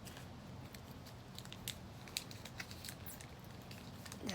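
Faint, scattered clicks and small snaps of hands working apart the internal parts of a broken iPhone 7, over a low steady hum.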